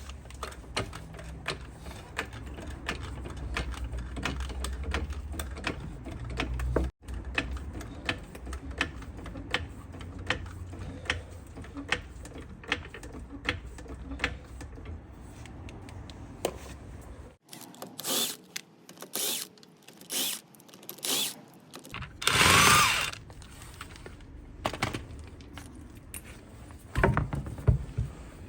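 Front corner of a car being jacked up and its wheel taken off with hand tools: a run of regular mechanical clicks over a low rumble, then a few loud metallic knocks and a short loud scraping burst about three quarters of the way through, with more knocks near the end.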